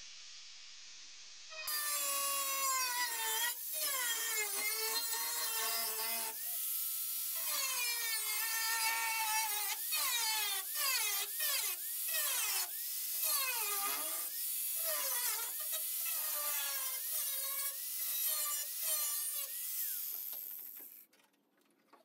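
Chicago Electric angle grinder with a cut-off wheel cutting through car body sheet steel. Its whine sags and recovers in pitch over and over as the disc bites and is eased off. It starts about two seconds in, breaks briefly, and stops about a second before the end.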